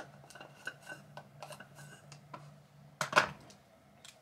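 Small clicks and rattles of makeup items, such as a brow pencil, being picked up and handled, with a louder clatter about three seconds in.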